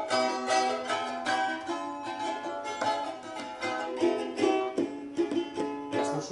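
Balalaikas being strummed and plucked together, a steady run of quick, bright plucked notes.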